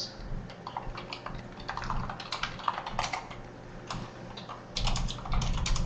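Typing on a computer keyboard: quick, irregular keystrokes that come faster and louder near the end.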